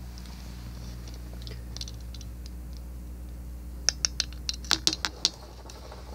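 Camera handling noise: a quick run of sharp clicks and scratches a little past the middle as the recording device is gripped and moved, over a steady low hum.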